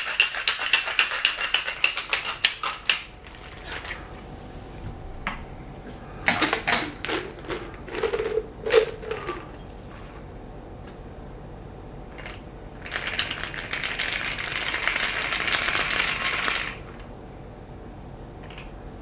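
Ice rattling fast in a metal three-piece cocktail shaker for about three seconds as the shake finishes, then a few sharp metal clinks as the shaker's cap is taken off. Later comes a few seconds of steady hiss while the creamy cocktail is poured through the shaker's strainer top into a glass.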